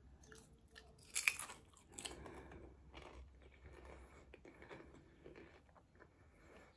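A bite into a thin Lay's potato chip gives one sharp crunch about a second in, followed by a few seconds of softer chewing.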